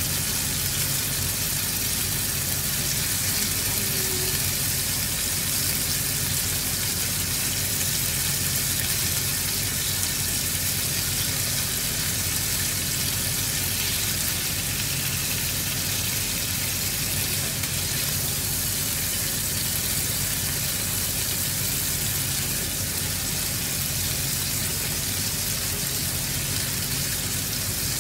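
Meat sizzling steadily in a frying pan, an even hiss that neither starts nor stops.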